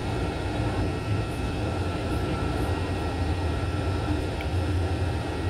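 Jet airliner heard from inside the passenger cabin: a steady deep rumble of engine and airflow noise, with a few faint steady whining tones above it.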